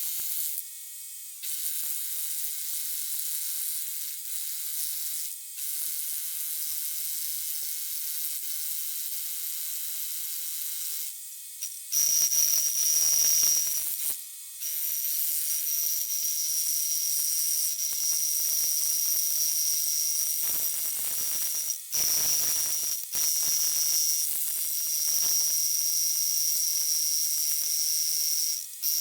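Power tools working concrete, heard as a steady high whir with a thin high whine over it from about twelve seconds in. The run is broken by several short gaps where the footage is cut.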